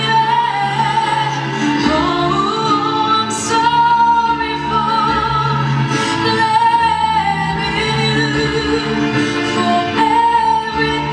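A woman singing through a microphone over instrumental accompaniment, holding long notes with vibrato.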